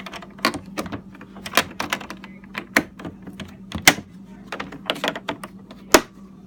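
A run of irregular clicks and knocks, two to four a second, with the sharpest ones about four and six seconds in, over a steady low hum.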